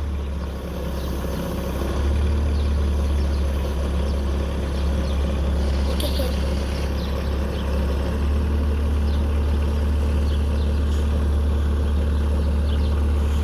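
Bobcat 773 skid steer's turbo diesel engine running steadily, a little louder from about two seconds in, with one brief click about six seconds in.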